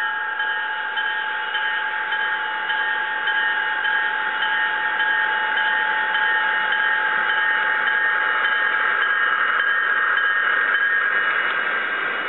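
Model passenger train rolling past: a steady rushing rumble of wheels on the rails with a steady whine on top, swelling as the coaches go by and easing off near the end.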